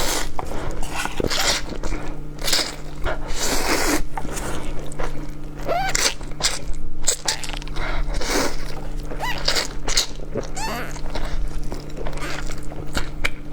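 Close-miked eating of instant ghost pepper noodles: repeated slurps, chewing and mouth noises in quick irregular strokes, over a steady low hum.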